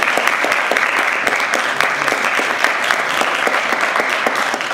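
An audience applauding steadily: a dense patter of many hands clapping.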